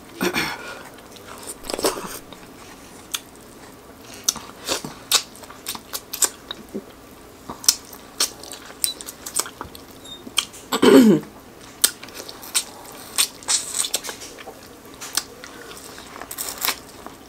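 Close-up eating of sauce-coated corn on the cob: sharp crunches and pops as kernels are bitten off the cob, with wet chewing and smacking throughout. About eleven seconds in, a short voiced sound from the eater is the loudest moment.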